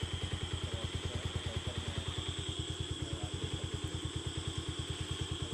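A small engine idling steadily, with an even beat of about a dozen pulses a second.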